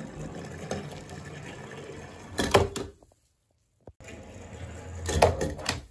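Die-cast Tomica ladder fire truck rolling down a wooden board, its small wheels making a steady rolling rumble, with a short clatter of knocks about two and a half seconds in and another near the end.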